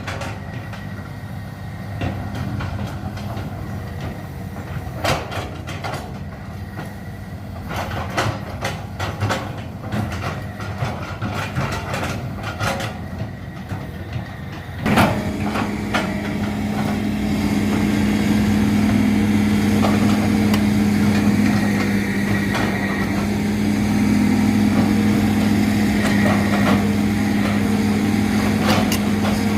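Hydraulic excavator's diesel engine running, with repeated short knocks and clanks over the first half. About halfway through comes a sharp knock, after which the engine holds a louder, steadier note as it works under load.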